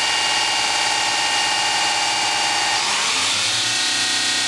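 Fadal VMC-4020 CNC mill spindle running at a steady 4,000 RPM with a whine of several steady tones, then speeding up about three seconds in, the pitch rising and settling at a higher spindle speed.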